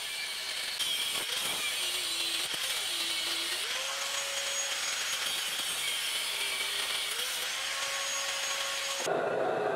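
Angle grinder with a cut-off disc cutting into car leaf-spring steel: a steady motor whine that sags in pitch several times as the disc bites into the cut and rises back as it eases off. Near the end it cuts off abruptly to a steady rushing noise.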